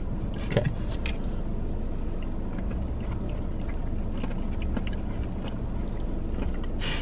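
Steady low rumble inside a car cabin, with faint clicks of forks and chewing while two people eat.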